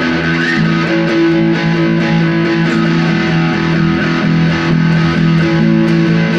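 Live band music: amplified electric guitar chords ringing out steadily with light distortion, the instrumental opening of a song before the vocals come in.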